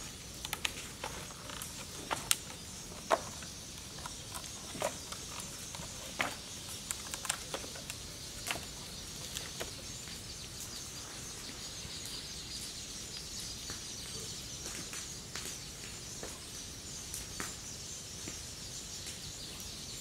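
Outdoor ambience with a steady high chirring, typical of insects. Scattered sharp clicks and knocks are heard, most of them in the first half.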